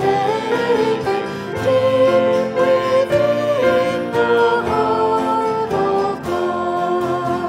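Voices singing a hymn verse to instrumental accompaniment.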